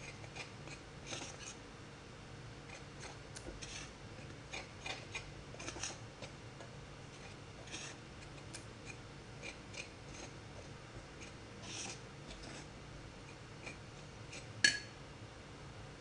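Metal spoon stirring dry flour, cornstarch and eggs in a ceramic bowl: irregular scrapes and light clicks of the spoon against the bowl, with one sharper knock near the end.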